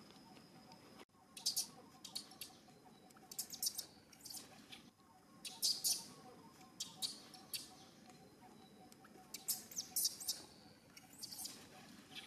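Small birds chirping: clusters of short, sharp, high chirps every second or two, over a faint steady background.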